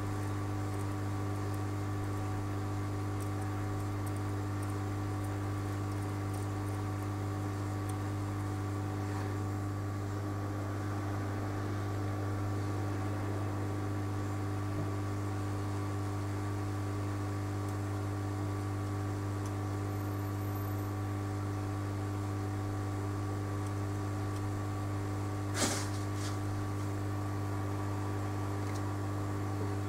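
Steady electrical hum with several fixed overtones, unchanging throughout, with a single sharp click near the end.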